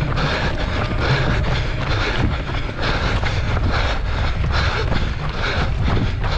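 A runner's footfalls at an even pace of about three a second, under wind buffeting the microphone.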